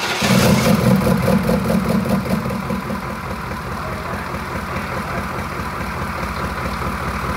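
A 6.2-litre Detroit V8 diesel in a 1990 Chevy pickup running just after it starts: it runs faster for the first couple of seconds, then settles to a steady idle.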